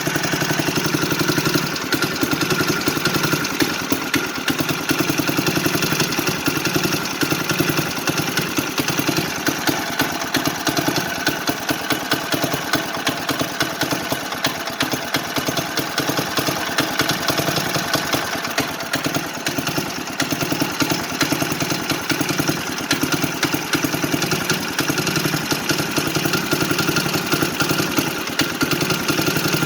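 1980s Craftsman riding mower engine running steadily, with a fast, even firing beat. It is left to run on the last fuel in its system until it runs out of gas, to empty it for winter storage.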